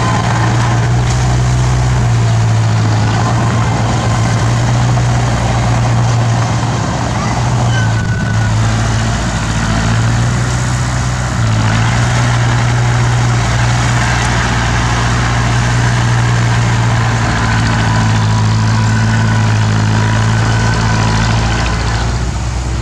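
Bulldozer's diesel engine running with a steady low hum, its note shifting slightly now and then.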